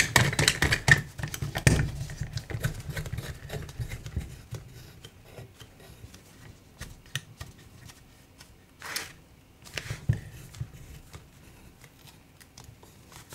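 Clicks and small rattles of a suction-cup screen-separator tool as gloved hands turn its knob to tighten the pull on an iPhone's firmly glued display. The clicks come thick in the first two seconds, then sparse, with two short louder scrapes about nine and ten seconds in.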